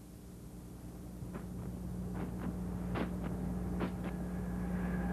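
Soundtrack drone: a low steady hum that slowly swells louder, with a few faint swishes, and a higher steady tone joining near the end.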